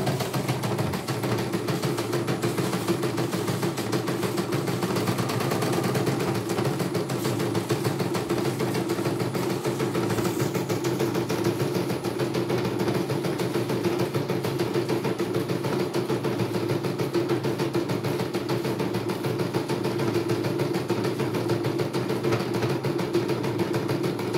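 CNY computerized embroidery machine stitching a design, its needle going up and down in a rapid, steady clatter over a constant motor hum.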